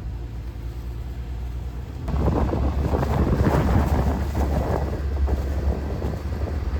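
Low steady vehicle rumble, then about two seconds in, loud wind buffeting the microphone starts suddenly and keeps gusting.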